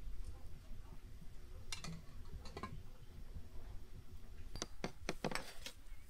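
Several light clinks of tableware, two in the first three seconds and a quick cluster about five seconds in, over a low steady rumble.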